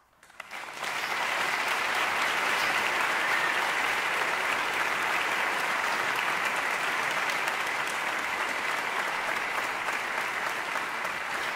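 Audience applauding a big band at the end of a piece: the clapping swells up about a second in, then holds steady.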